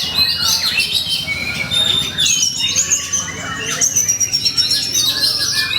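Oriental magpie-robin (kacer) singing hard and without pause: a fast, unbroken stream of varied whistles, glides, trills and scratchy notes, the aggressive full song used to provoke other kacer.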